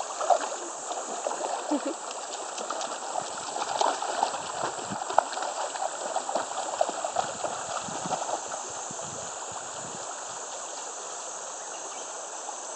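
Shallow river running over stones, with a golden retriever splashing as it wades through the current. The splashing stops about two-thirds of the way in, leaving only the steady rush of the water.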